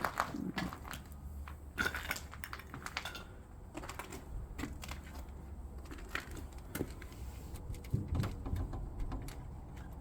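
Footsteps crunching and clicking over debris on a fire-damaged floor: an irregular run of short crunches and ticks.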